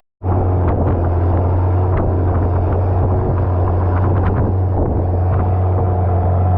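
Longtail boat engine running steadily under way, a loud, even low drone with a few faint knocks over it.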